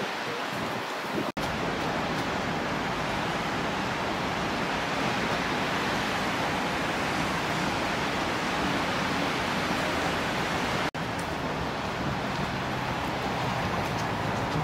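Steady outdoor rushing noise picked up by the camera's microphone, with no distinct events. It is broken by two momentary gaps, about a second and a half in and about eleven seconds in.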